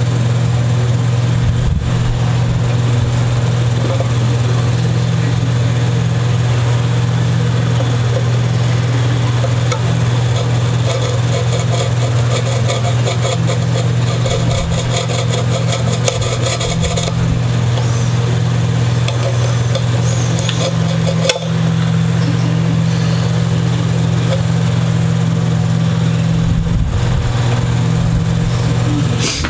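Steady low machine drone, like a motor running, throughout. About a third of the way in, a few seconds of fast, even scratching sit over it.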